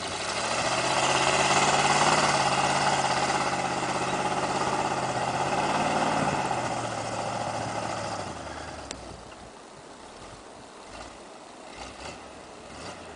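1977 Ford F-150 4x4 pickup's engine revving up hard and held at high revs while the truck bogs through deep snow, then the revs fall away about eight seconds in and it runs much quieter.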